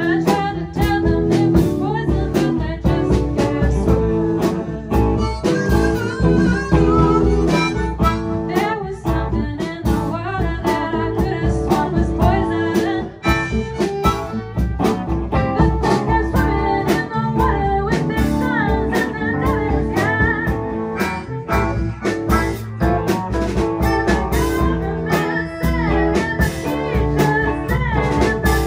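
A live blues band playing: drums keeping a steady beat under bass and guitar, with a lead line that bends up and down in pitch.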